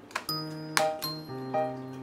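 Background music starts about a quarter second in: a light melody of bright, ringing notes over steady bass notes.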